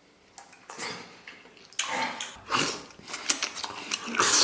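Close-up wet eating sounds of braised pig intestine: irregular slurps and juicy chewing, growing louder and busier from about two seconds in, with the loudest slurp near the end.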